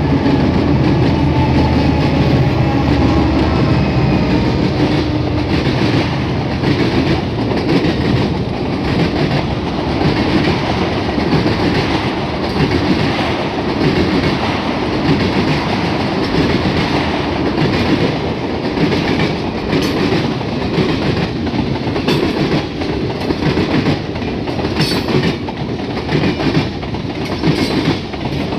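HO scale model freight train rolling past, its wheels running with a steady rumble and a clickety-clack over the rail joints. A faint steady tone from the locomotives' onboard sound fades in the first few seconds as they pass.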